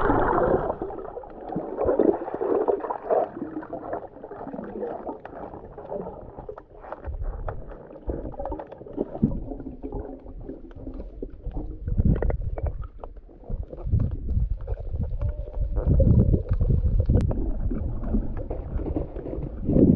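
Muffled sloshing and splashing of water, irregular and uneven in loudness, with short surges throughout.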